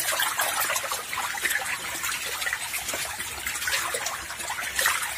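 Water splashing and trickling: a crowd of climbing perch thrashing at the surface of shallow pond water, with many small splashes and drips.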